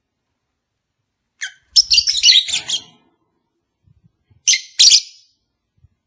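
Lovebirds giving shrill, rapid chirping calls in two bursts: about a second and a half of chatter starting a second and a half in, then a shorter burst about four and a half seconds in.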